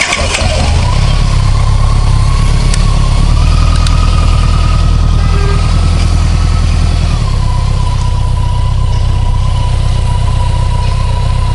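Touring motorcycle engine just catching after the starter and idling fast, with a steady whine above the engine note; about seven seconds in the engine speed drops a little and settles.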